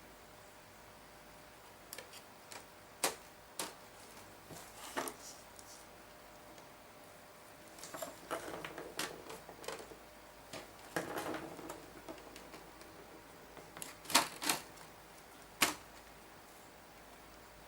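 Irregular sharp clicks, taps and brief rattling of small hard parts being handled, a few louder clicks standing out near the end.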